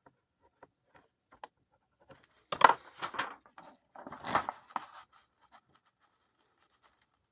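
Scattered light clicks, then two short bursts of rustling, scraping handling noise about two and a half and four seconds in.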